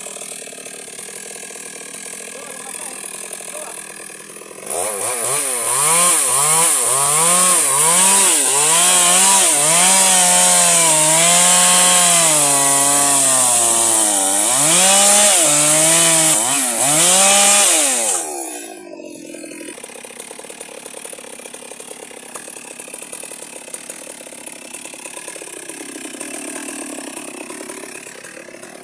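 Electric chainsaw cutting wood: a loud motor whine with a chain hiss, its pitch repeatedly dipping and recovering as the chain bites. It starts about five seconds in and stops about eighteen seconds in, with only a much quieter background before and after.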